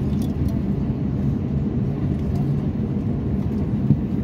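Steady low cabin rumble inside an Airbus A350-900 taxiing in after landing: the engines at idle and the aircraft rolling along the taxiway.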